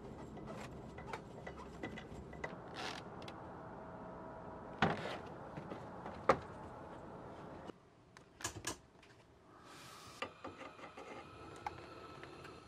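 Scattered clicks and knocks of hands working a propane tank valve and gear. A little past halfway it turns quieter, with two quick sharp clicks and then a short hiss as a gas stove burner is lit.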